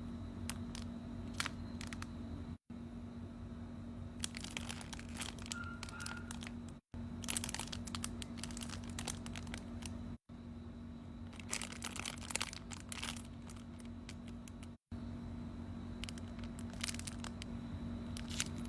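Faint crinkling and rustling of foam squishy toys being squeezed and handled, in short bursts broken by several abrupt cuts, over a steady low hum.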